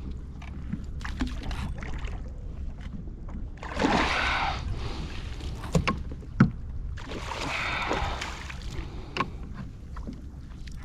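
Water sloshing and splashing around a plastic pedal kayak in two longer rushes, with a few sharp knocks, the loudest about six and a half seconds in, over a steady low rumble.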